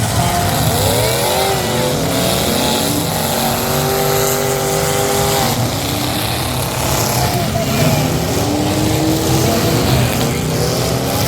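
Several demolition-derby car engines revving, their pitches rising and falling and overlapping over a loud, steady din.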